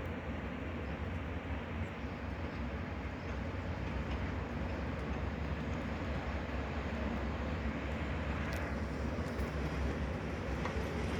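Freight train hauled by a Siemens Vectron electric locomotive running through: a steady rumble of wheels on the rails that grows slightly louder.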